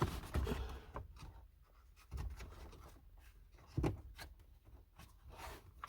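Hands groping behind a car dashboard: soft rubbing and scraping with scattered small clicks, and a few dull low knocks.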